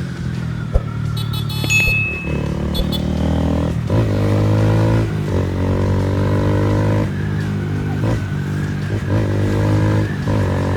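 Honda Fan 160's single-cylinder engine running through an aftermarket Fortuna exhaust while the bike is ridden; the exhaust note climbs in pitch, breaks off briefly and picks up again several times as the throttle is opened and eased.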